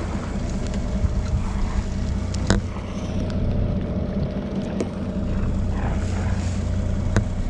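Charter fishing boat's engine running steadily, a low even hum, with a few sharp clicks on top, the loudest about two and a half seconds in.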